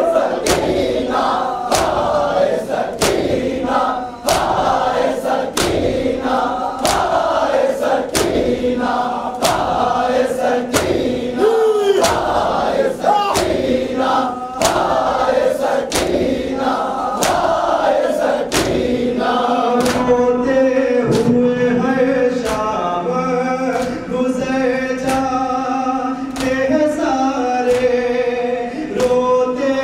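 A crowd of men chanting a Muharram noha in unison, keeping time with rhythmic matam: open hands slapping their chests in a steady beat, about one slap a second, coming closer together in the last third. In the last third a single man's voice leads the singing through a microphone.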